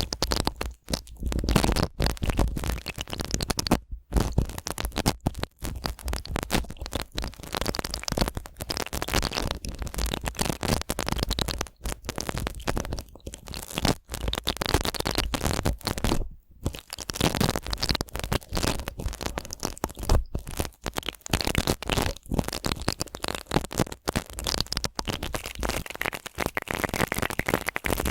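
Bristle brush being stroked rapidly and repeatedly for ASMR, a dense scratchy rustling with low rumbles and a few brief pauses.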